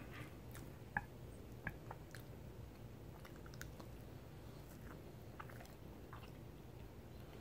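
A person biting and chewing a corn dog close to the microphone: faint, irregular mouth clicks and smacks, with a sharper click about a second in.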